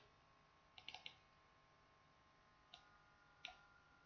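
Faint computer mouse clicks: a quick group of three or four about a second in, then two single clicks near three and three and a half seconds.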